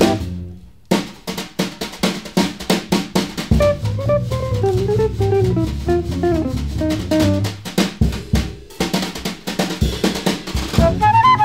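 1950s cool-jazz quartet recording with the drum kit to the fore: rapid snare and cymbal strokes over a plucked bass line. A single-note melodic line runs through the middle, and the flute comes back in near the end.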